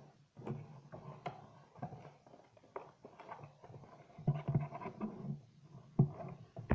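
Handling noise from fingers gripping and shifting an action figure's plastic blister pack and card backing: irregular crackles, rubs and small knocks, the sharpest about four and six seconds in.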